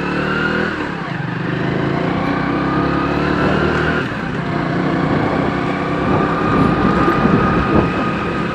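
Vehicle engine pulling away and accelerating, its pitch climbing, dropping about four seconds in, then climbing again.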